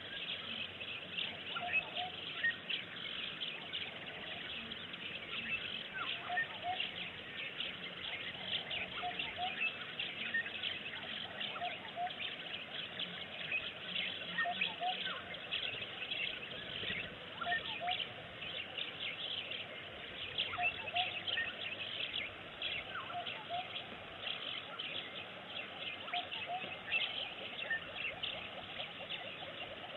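Wild bush ambience: many small birds chirping and calling over a steady background hiss, with a short two-note call repeating every second or two.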